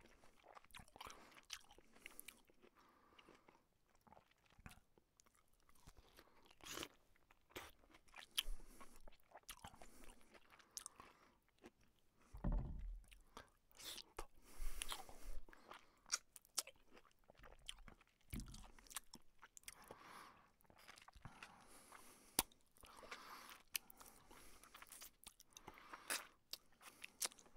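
A person eating: chewing and crunching food with wet slurps between bites, as an irregular run of small clicks and short noisy bursts, a few of them louder in the middle.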